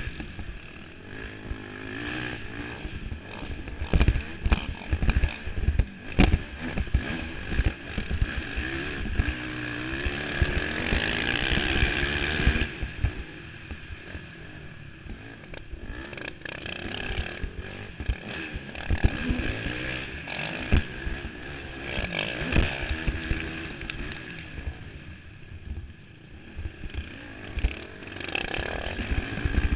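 Honda TRX450R quad's four-stroke single-cylinder engine under race throttle, revving up and falling back again and again, with one long high rev that drops off about halfway through. Wind and knocks hit a helmet-mounted microphone, and other quads run close by.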